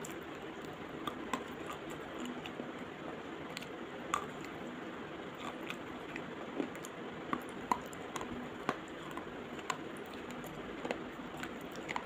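Slate pencil bitten and chewed close to the microphone: scattered sharp crunches and crackles, irregularly spaced, over a steady hiss.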